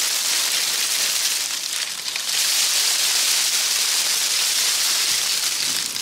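Dry dead leaves still clinging to small trees rattling and rustling as the branches are shaken hard by hand to knock them loose, a dense steady hiss.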